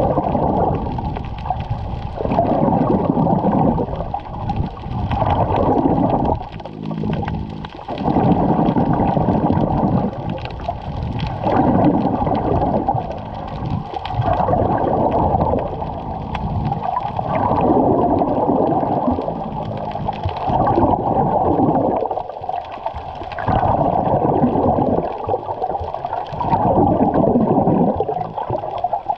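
Muffled underwater rush of water heard through a GoPro's waterproof housing while swimming, swelling in surges every two to three seconds.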